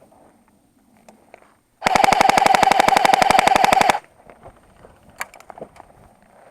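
An airsoft gun fires one rapid full-auto burst of about two seconds, at roughly twenty shots a second. The burst starts a couple of seconds in and cuts off sharply.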